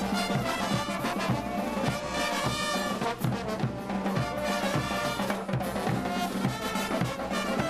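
Brass band playing a morenada: trumpets and sousaphones over a steady drum beat, about two strokes a second.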